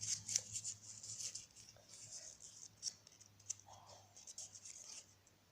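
Small folded paper slip being opened: faint, scratchy rustling with scattered small clicks.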